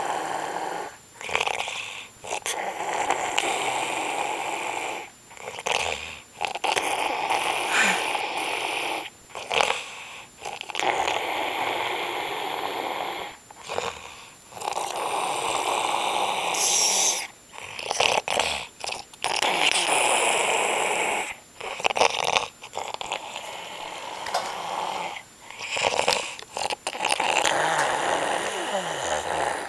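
Snoring: a run of long snores, each lasting a second or up to about three seconds, with short pauses for breath between them.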